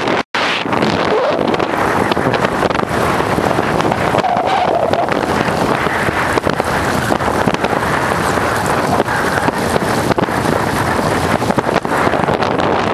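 Wind buffeting the microphone on a moving bicycle: a loud, steady rushing noise that cuts out for a split second near the start.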